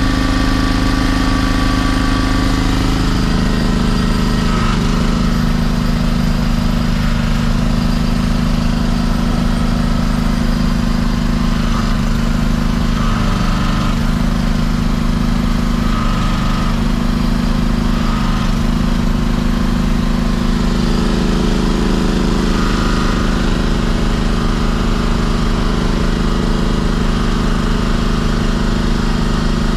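An engine running steadily at a constant level, its pitch shifting slightly now and then.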